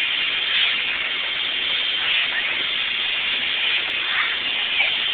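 Bread-wrapping machine on a bakery production line running sweet bread, a steady, even mechanical noise without breaks.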